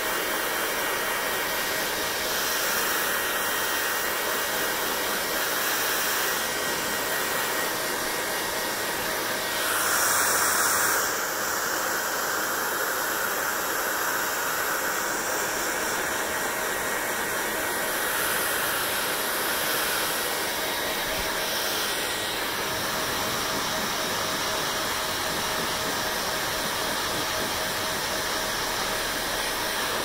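Handheld hair dryer blowing steadily on wet hair, a steady rush of air with a faint motor whine in it. It swells briefly louder about ten seconds in.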